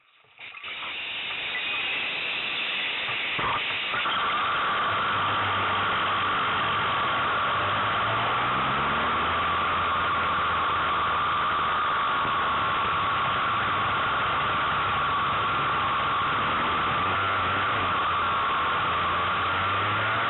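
Racing kart engine running at speed, heard through an onboard camera's microphone under a steady rushing hiss of wind; one short knock about three and a half seconds in.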